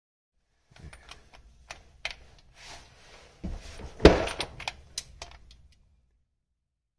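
Metal clicks and knocks of a socket and chrome extension being fitted onto a transmission drain plug, with one louder knock about four seconds in.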